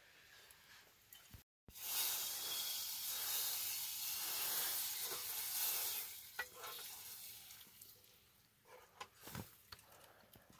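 Food sizzling in a hot pan as it is stirred with a metal ladle, starting loud about a second and a half in and dying down over the following few seconds, with a few light knocks near the end.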